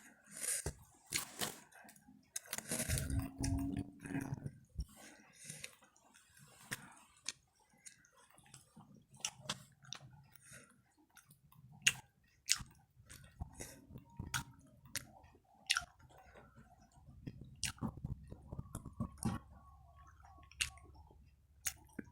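A person chewing crunchy gorengan (Indonesian fried snacks), with irregular sharp crunches throughout and a louder stretch of chewing about three seconds in.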